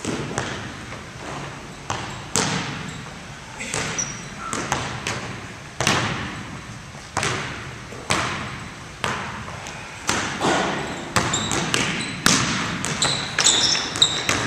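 Basketball bouncing on a hardwood gym floor, about once a second, each bounce ringing on in the hall. Sneakers squeak on the floor near the end.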